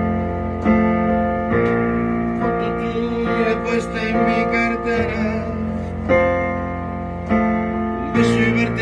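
Music of a slow song's intro: sustained guitar and keyboard chords changing every second or so, with a few wavering higher notes.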